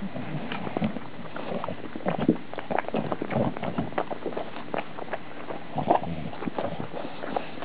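English bulldog puppy chewing and gnawing a torn fabric plush toy close to the microphone: a run of irregular mouth clicks and smacks.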